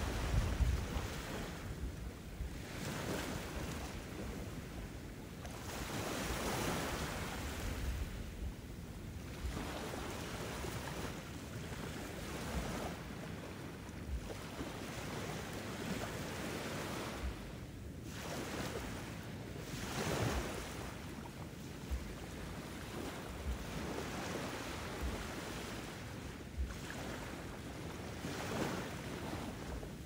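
Ocean surf: waves breaking and washing in, the rush swelling and fading every few seconds.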